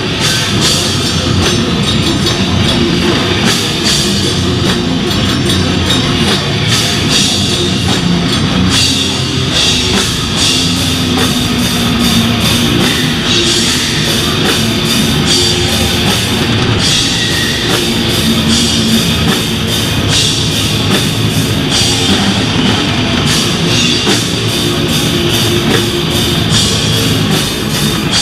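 A heavy beatdown hardcore band playing live and loud: distorted electric guitar over a pounding drum kit with crashing cymbals.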